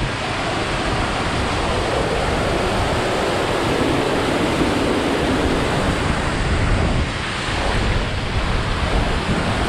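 Waterfall rushing: a steady noise of falling water, with wind buffeting the microphone.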